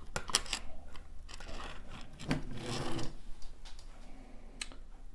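Handling noise as a laptop motherboard is turned over on a desk and multimeter probes are set on it: irregular rubbing and scraping with light clicks, and one sharper click near the end.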